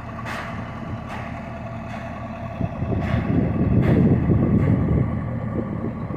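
A vehicle engine running steadily, getting louder with a low rumble about three seconds in before easing off again.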